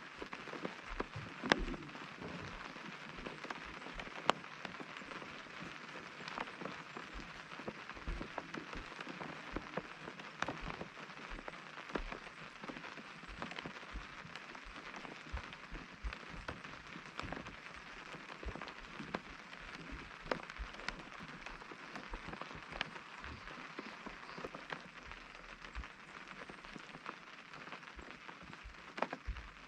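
Rain pattering on a tent's fabric: a steady hiss with many individual drops ticking sharply on the material, a few louder drops standing out.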